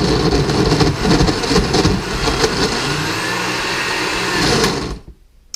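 Hamilton Beach blender motor running under heavy load, having a hard time as the blades churn a balisong knife and chunky solids, with constant clattering and a wavering motor pitch. It shuts off abruptly about five seconds in.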